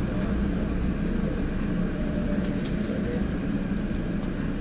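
Seohae Line electric commuter train running, heard from inside the carriage: a steady low rumble of the running gear with a thin, wavering high squeal from the wheels.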